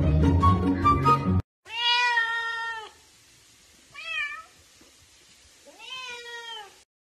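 Music for about a second and a half, then a Bengal cat meowing three times: a long meow, a short one about two seconds later, and another long meow near the end.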